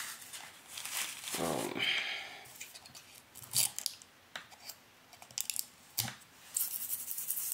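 Scattered clicks and plastic rustling as fingers work the pump top of a plastic bottle. A short vocal sound comes about a second and a half in.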